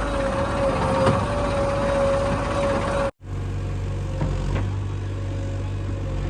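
Diesel engine of a JCB 3DX backhoe loader running steadily while working. Just after three seconds the sound drops out for an instant, and a deeper engine note follows.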